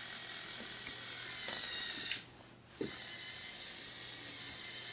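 Motor and plastic gearing of a Lego Technic bulldozer whirring steadily as the ripper is worked. It stops for about half a second a little past two seconds in, then starts again with a small click.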